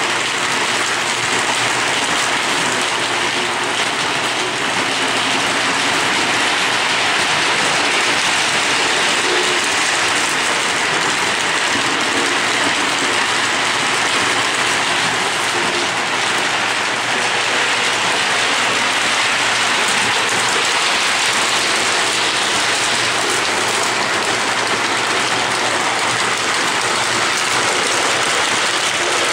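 Lionel O27 model trains running on three-rail track: a steady, even rattle of metal wheels rolling over the rails.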